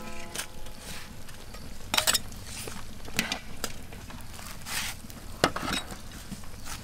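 A metal wire strainer and spoon clinking and scraping against a stainless steel tray as pieces of braised pork are set down on it, in a few scattered knocks.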